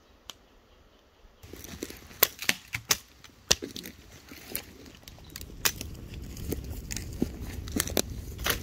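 Near silence for about a second and a half. Then come irregular sharp clicks, snaps and crinkling of gear and packaging being handled, over a low rumble that grows louder in the second half.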